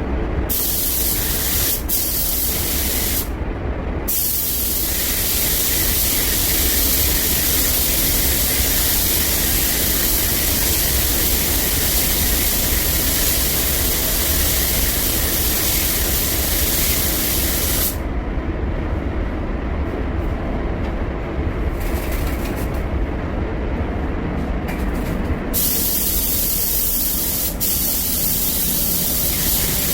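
Compressed-air paint spray gun hissing steadily while spraying paint on a car body panel. The hiss stops briefly about three seconds in and again for several seconds past the middle, with a short burst in between, over a steady low rumble.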